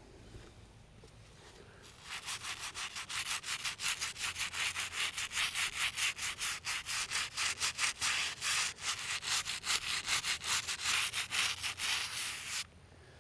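Brush scrubbing a wet headstone with water and Orvis paste, a gentle soap: quick, even back-and-forth strokes, about four a second, starting about two seconds in and stopping abruptly near the end.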